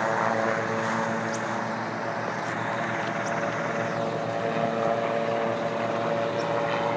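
Presidential helicopter (Marine One) climbing away after lift-off: a steady rotor and engine drone with a few held tones.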